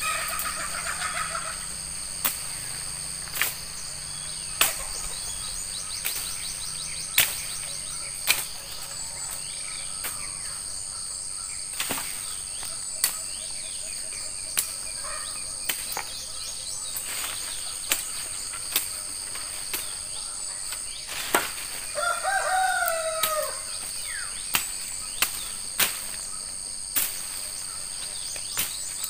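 Machete chopping through brush and saplings, sharp hacks about every second or two, over a steady high drone of insects. A rooster crows once about two-thirds of the way through.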